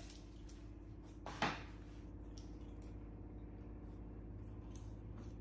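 Small scissors snipping paper: a few faint short snips over a low steady hum, with one brief louder sound about a second and a half in.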